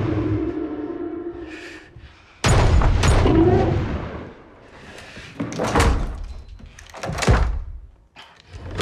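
Heavy booming impacts against a wooden cabin, each ringing on in the room: a loud boom about two and a half seconds in, then two sharper thuds later on.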